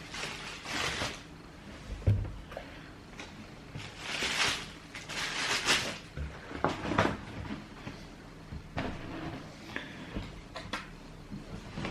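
Cardboard shoe box and paper being handled: irregular rustling and scraping with several light knocks and a low thump about two seconds in.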